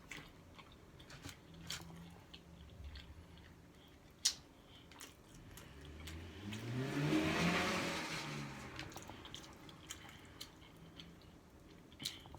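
Quiet chewing and small clicks of eating, with a vehicle passing outside about six to nine seconds in, its engine note swelling and rising, then falling away.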